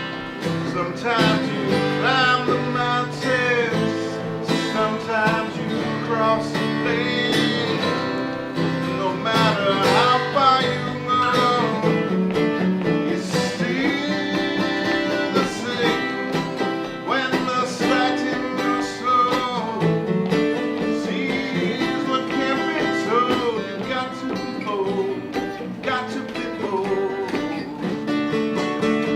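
Acoustic band playing an instrumental break: strummed acoustic guitar under a plucked lead melody line.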